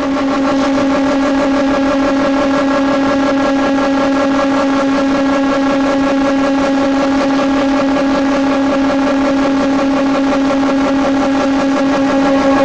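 Four-sided timber moulder running at speed: its motors and spinning cutter heads give a steady, even hum-whine that does not change.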